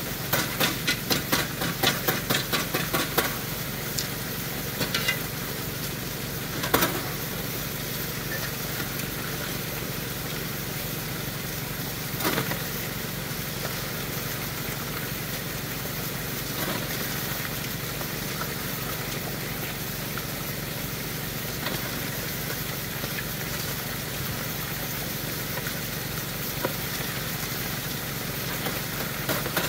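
Steady hum of the high banker's water pump running, with water rushing through the sluice. For the first few seconds gravel rattles quickly through the hopper, about three or four clicks a second, and single knocks of rock come twice later.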